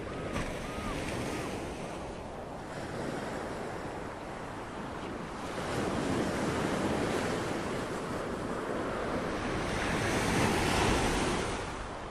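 Ocean waves surging in a steady wash, swelling louder twice, about six and ten seconds in. A few short, high, arched chirps repeat at the start and fade out within the first second or two.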